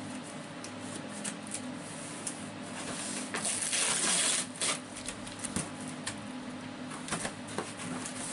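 Scissors and hands opening a cardboard shipping box: scattered clicks and rustles of cardboard and packing tape, with a louder rasp of tape or cardboard being cut or torn about three and a half seconds in, lasting about a second.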